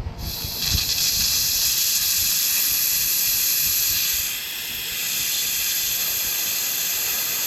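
Pneumatic air jack letting out compressed air in a loud, steady hiss as it lowers the car. The hiss eases briefly a little past halfway, then picks up again.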